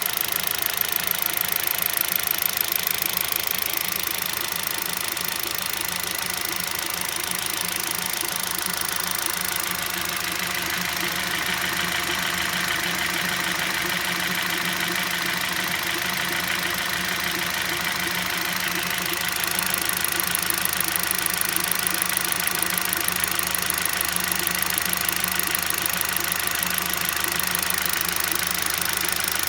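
Kia Rio engine idling with a fast, even knock running through it, the knock the owner is showing. It gets a little louder about two-thirds of the way in.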